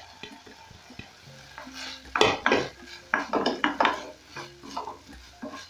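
Wooden spatula stirring pork pieces in a non-stick frying pan, an irregular run of scrapes and light knocks against the pan starting about two seconds in.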